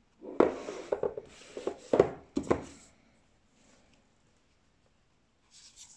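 Oracle cards and their cardboard box being handled on a wooden tabletop: a quick run of taps, knocks and rubs over about two and a half seconds. Near the end there is a brief card-sliding rustle.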